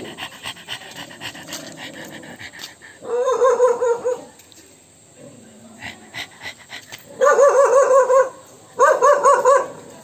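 A loud, rapidly warbling high-pitched sound in three bursts of about a second each, the 'annoying sound' used to provoke dogs into anger.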